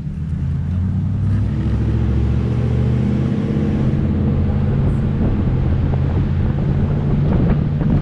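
Car engine drone and road noise heard inside the cabin while driving slowly through town: a steady low hum whose pitch shifts about halfway through.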